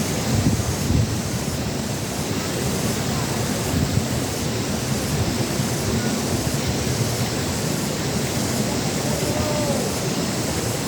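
Wind blowing across the microphone: a steady low rushing noise with no distinct events.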